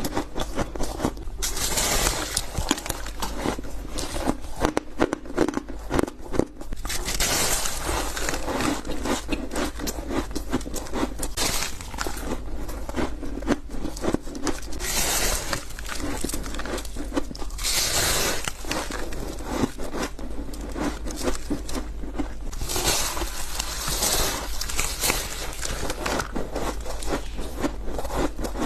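White ice being bitten and chewed close to the microphone: a dense, continuous run of crunching and crackling, with louder crunching bites every few seconds.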